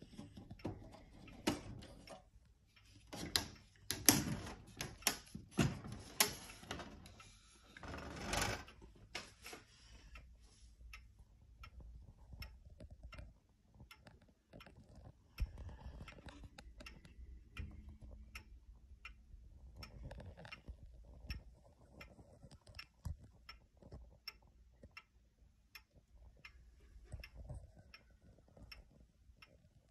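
Pendulum movement of a two-weight Franz Effenberger Vienna regulator wall clock ticking, with a steady, even run of ticks. For the first several seconds, irregular knocks and handling noise stand out over the ticking.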